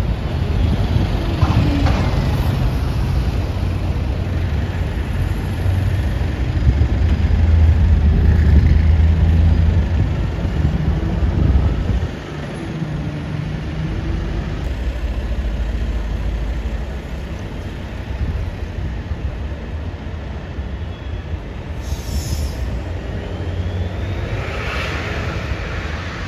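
Street traffic dominated by London buses: a red double-decker bus passing close by with a heavy low rumble, which drops off suddenly about twelve seconds in. Quieter, steadier traffic noise follows as buses move further off, with two short hissing bursts near the end.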